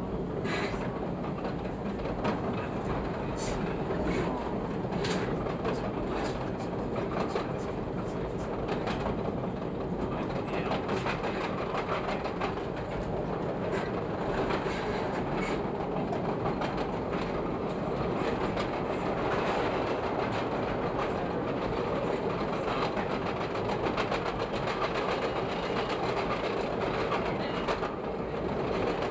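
Chicago 'L' rapid-transit train running on elevated track, a steady rumble with frequent clicks of the wheels over rail joints.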